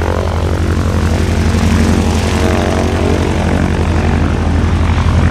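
Piston engine of a propeller aircraft running steadily at an even pitch, with a strong low hum.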